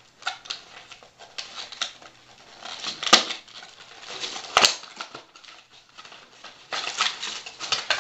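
A cardboard headphone box being opened by hand, its inner tray slid out of the sleeve: scattered scrapes and rustles with sharp clicks, the two loudest about three and four and a half seconds in, then a busier run of rustling and clicking near the end.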